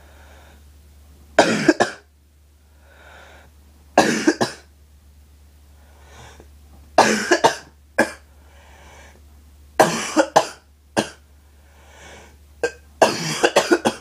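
A person coughing in about five fits, each of two or three sharp coughs, some three seconds apart. It is a harsh, barking cough.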